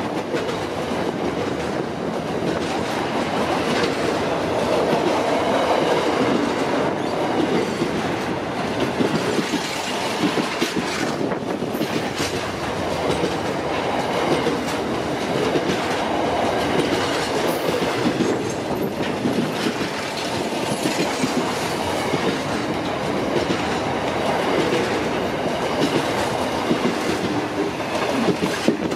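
Freight train of container wagons passing close by: steady noise of steel wheels running on the rails, with repeated short clicks as the wagons roll over the track.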